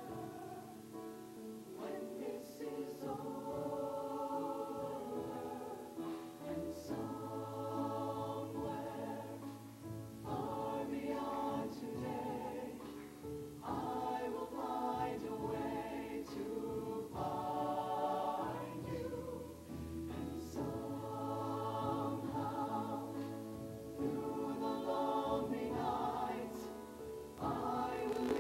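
Mixed-voice show choir singing in harmony, holding chords that change every second or two, with steady low notes underneath.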